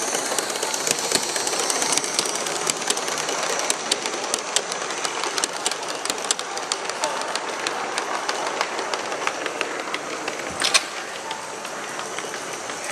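Large-scale garden model train rolling along the track, its wheels clicking irregularly over the rail joints. The sound gradually gets quieter as the cars pass.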